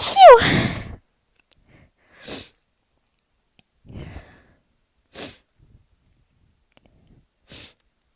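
A person sneezing once, loudly, at the very start, an 'achoo' that falls in pitch and ends about a second in. Four short, quiet breathing sounds follow, spaced a second or two apart.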